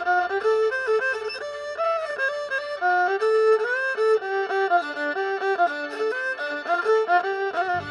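Isan folk instrumental music played by a pong lang ensemble: a quick melody of held, stepping notes with no singing. A deep steady low tone comes in just before the end.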